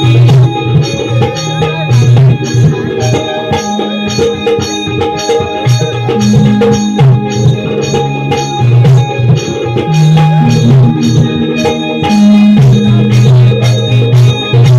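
Instrumental Shakti-Tura folk music: fast, even hand-drum strokes under held keyboard or harmonium notes.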